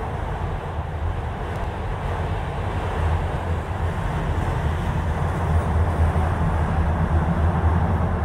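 Autorack freight cars rolling past on the rails: a steady rumble of steel wheels on track, growing a little louder about three seconds in.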